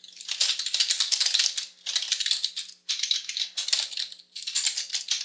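Typing on a computer keyboard: quick keystrokes in short runs, broken by brief pauses.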